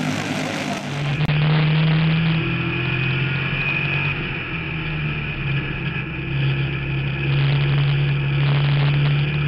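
A race car's engine heard from inside the car, running hard at a steady high pitch that dips slightly now and then. About a second in, this takes over from the buzz of go-kart engines.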